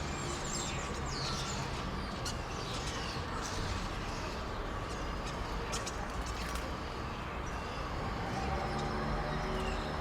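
Night-time nature ambience: many short, quick chirping animal calls repeat over a steady background hiss, with a few sharp clicks. A low steady hum with several tones joins near the end.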